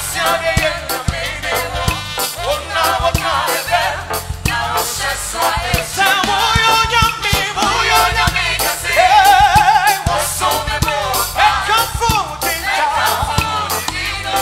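Live gospel praise music: several singers on microphones leading over an electronic keyboard accompaniment.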